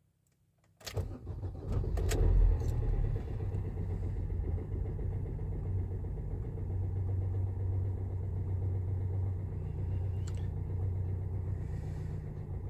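Fiat Fiorino van's diesel engine coming in about a second in, surging briefly, then settling into a steady idle, running again after its earth strap was cleaned and refitted.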